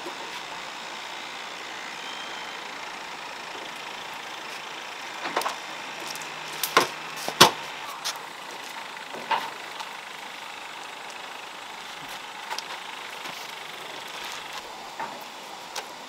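A handful of sharp knocks and clatters, bunched near the middle with the loudest about halfway through, over a steady hiss.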